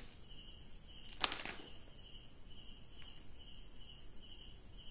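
A cricket chirping steadily, about two chirps a second, with a short crinkle of plastic packaging being handled a little over a second in.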